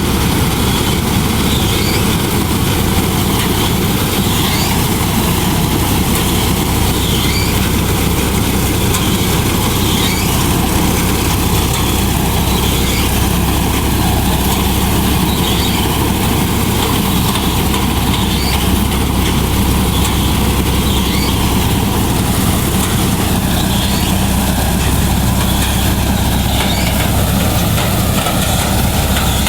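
Tractor engine driving a Vikas 325 tractor-mounted mini combine harvester, running steadily with a constant mechanical din from the machine.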